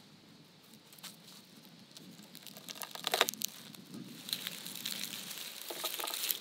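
A head of garlic being broken apart by hand into cloves: the dry, papery skins crackling and rustling, with a few sharp snaps. The loudest burst of crackling comes about three seconds in, with steady crinkling after.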